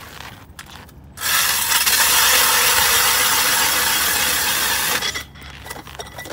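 Hand-cranked ice auger boring through lake ice: its blades cut with a loud, steady rasp that starts about a second in and stops near the end, followed by a few light clicks.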